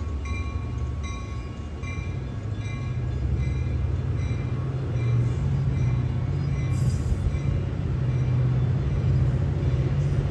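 Metra commuter train's EMD steel locomotive bell ringing about twice a second, fading over the first half, over the steady low rumble of the passing train.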